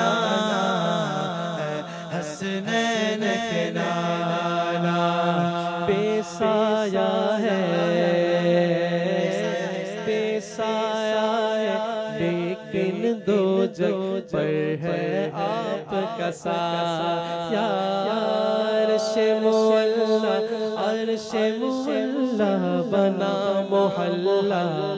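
Voices chanting a devotional naat, holding long notes and gliding slowly between them, with a few soft clicks scattered through.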